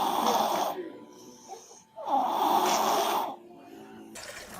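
A sleeping baby snoring: two loud snores about two seconds apart, each lasting roughly a second, with quieter breathing between them.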